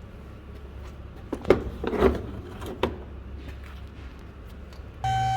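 A few sharp knocks and rattles of car door parts being handled and set down, the loudest about one and a half seconds in. Near the end a steady electronic-sounding tone with a low hum starts abruptly.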